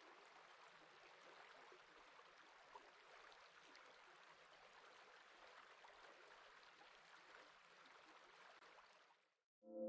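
Faint, steady rush of a slow river flowing, with small lapping trickles. It cuts off just before the end, where music with ringing tones starts.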